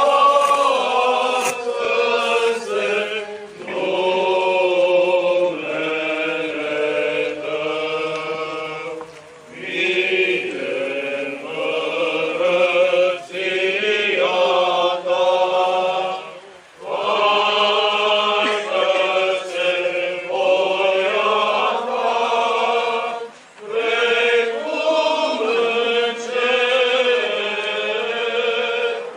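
Church choir singing Orthodox liturgical chant in long, sustained phrases, with short breaks between phrases about 9, 17 and 23 seconds in.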